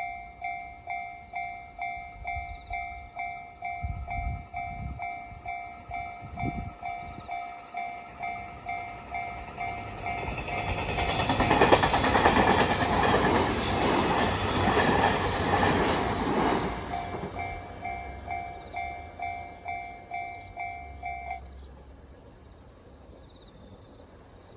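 Japanese level-crossing alarm dinging steadily, just under two dings a second, while a train passes through the crossing. The train's noise rises to its loudest about twelve seconds in and fades by about seventeen. The alarm stops about twenty-one seconds in.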